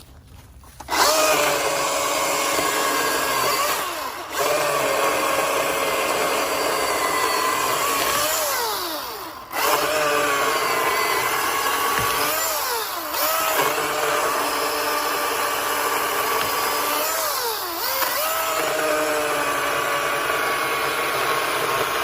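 Milwaukee Fuel battery chainsaw cutting a large log. It starts about a second in with a steady motor whine whose pitch sags and recovers several times as the chain bogs under load. It stops briefly about nine seconds in, then starts again.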